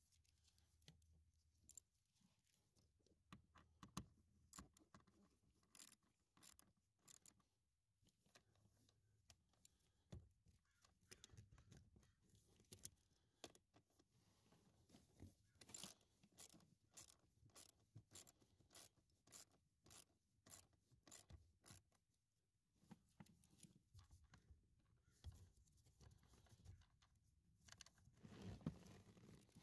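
Mostly near silence, broken by faint, scattered clicks and scrapes of the blower motor's mounting screws being turned into the plastic housing.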